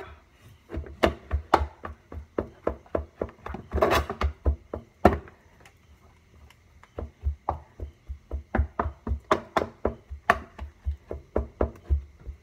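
A wooden stick tamping loose coconut-coir substrate down inside a clear acrylic tarantula enclosure, packing it firm. It makes a run of dull thuds with sharp clicks, about three a second, pausing briefly about halfway through before starting again.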